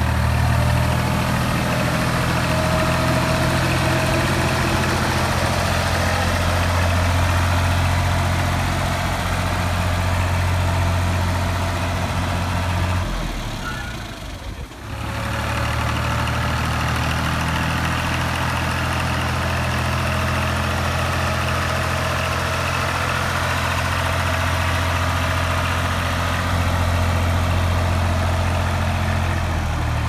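Universal U445 tractor's diesel engine running steadily while it pushes a front-mounted grain blade through piled rice. The engine sound drops out briefly about halfway, then comes back.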